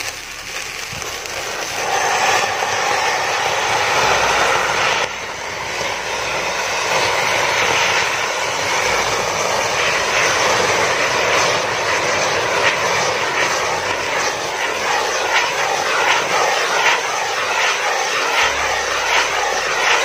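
Several pookkutti (flowerpot fountain fireworks) burning together as they drive a homemade propeller rotor, giving a loud, steady hissing rush. Short crackles run through it from about halfway on.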